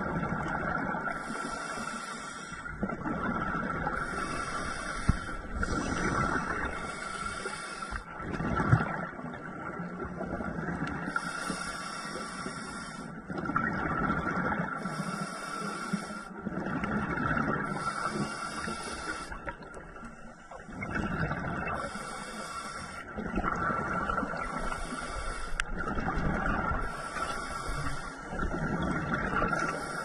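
Scuba diver breathing through a regulator underwater: a hiss on each inhale, then a rush of exhaled bubbles, repeating in a steady cycle about every three seconds.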